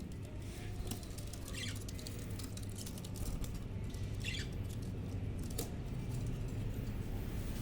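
Budgerigars giving a few short, high chirps, with light clicks and patter from the birds moving about, over a steady low hum.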